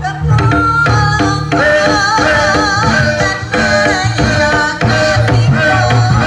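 Live jaranan gamelan music: hand-drum strokes and gongs under a wavering, high melody line that runs on without a break.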